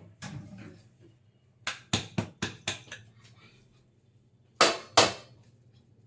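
Sharp knocks of a bamboo tube of chicken biryani being tapped to loosen the rice stuck inside: a quick run of about six knocks, then two louder ones close together near the end.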